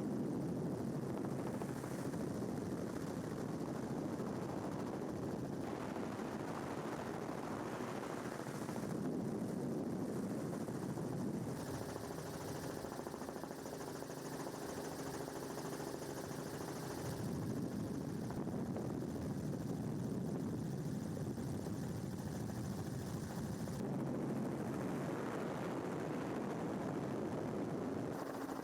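Steady engine and rotor noise of the aircraft shooting the aerial footage, heard from aboard. It changes character abruptly several times where the footage is cut.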